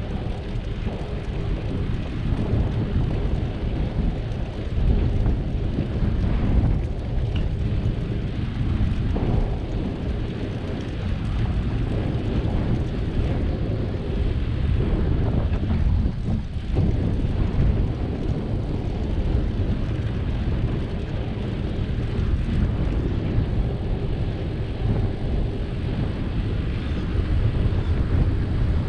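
Wind buffeting the microphone of a camera on a moving bicycle: a steady low rumble mixed with road noise, rising and falling slightly but never stopping.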